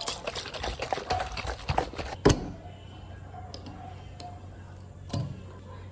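Glass swing-top bottle being handled: about two seconds of rattling clicks and knocks as it is tipped and shaken, ending in one sharp click, then a few faint clicks and one more clear click near the end as the wire clasp of the stopper is worked.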